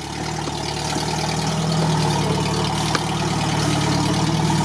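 UAZ off-roader's engine running at low revs as it crawls through mud past the camera, slowly growing louder as it comes closer.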